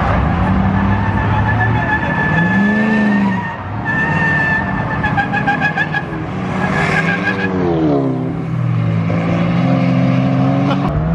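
Pickup truck engine revving hard during a burnout, its pitch rising and falling several times, with tires squealing against the pavement.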